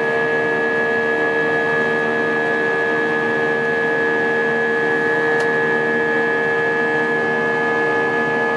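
Airbus A320's IAE V2500 turbofan engines heard from inside the cabin in the climb after takeoff: a steady drone with a strong hum and a higher whine, both held at a constant pitch.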